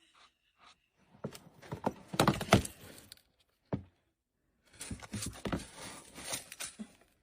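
Two runs of quick knocks and scuffles with a single sharp knock between them.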